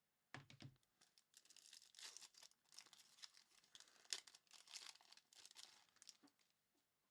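A foil pack of Topps Chrome baseball cards being torn open and crinkled by hand, in a run of short tearing and crinkling bursts, after a soft knock about half a second in.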